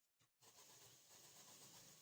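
Sewing machine stitching, faint: a brief stop and a short blip, then it runs steadily again from about half a second in, joining a blouse piece to its lining.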